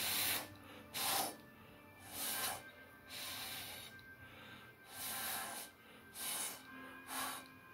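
About seven short, sharp puffs of breath, roughly one a second, blowing wet acrylic paint across a canvas in a Dutch pour. Faint background music plays underneath.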